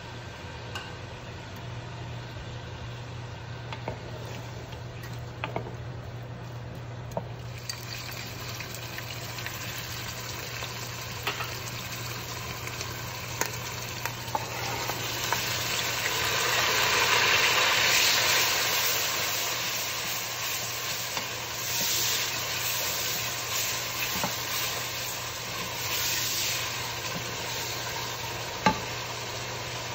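Onions, then ginger-garlic paste and tomatoes, frying in hot oil in an aluminium pressure cooker and stirred with a wooden spatula, with scattered clicks and scrapes of the spatula on the pot. The sizzle starts faint, grows about a quarter of the way in and is loudest around the middle as the wet ingredients go into the oil, with a sharp knock near the end and a steady low hum underneath.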